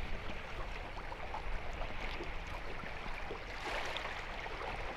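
Steady wash of fast-flowing river water lapping against a boat's hull, over a low rumble, swelling slightly near the end.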